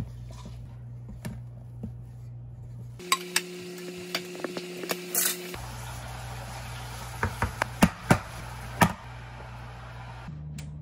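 A spatula stirring and scraping cheesecake batter in a mixing bowl, with sharp clinks against the bowl. The loudest clinks come in a cluster near the end. A steady low hum runs underneath.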